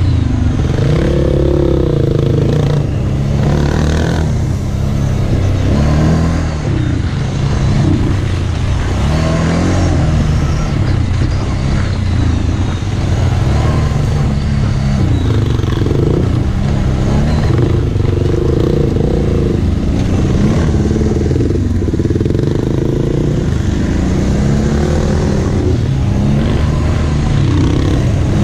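Kawasaki Brute Force 750 ATV's V-twin engine running hard under changing throttle, its pitch rising and falling again and again as it is ridden.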